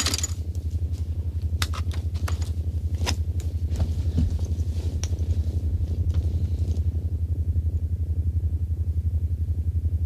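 Low, rapidly pulsing electrical hum of a science-fiction machine, with scattered clicks and ticks over the first several seconds.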